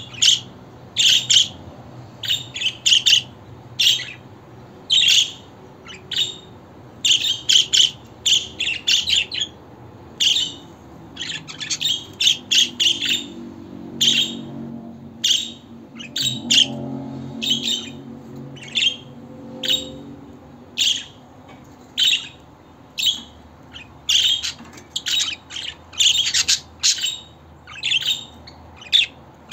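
Budgerigar chirping and chattering: short, sharp, high calls in quick bursts, one or two a second, with a faint low hum underneath around the middle.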